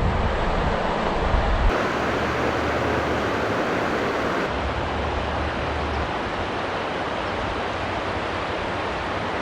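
Steady rush of flowing river water, with low wind rumble on the microphone at times.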